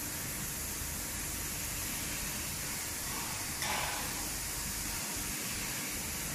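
Kewande touchless car wash's overhead spray arm jetting high-pressure water and foam onto a car as it travels around it: a steady spray, with a brief louder surge a little past halfway as the jet swings past.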